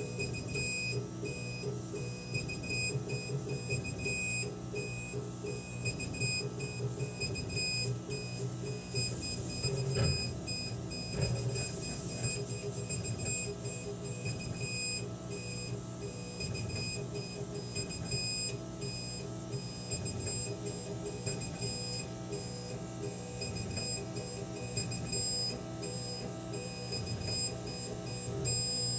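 K40 CO2 laser cutter at work cutting wood. A steady low hum runs throughout, with high-pitched tones that keep cutting out and coming back as the head moves.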